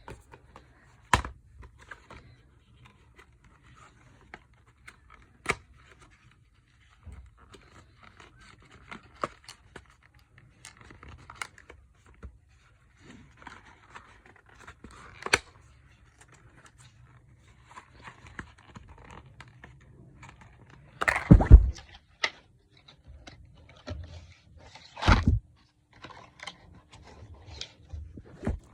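Product packaging being handled and opened: scattered scraping and crinkling with sharp clicks and taps. The loudest is a cluster of knocks about three-quarters of the way through.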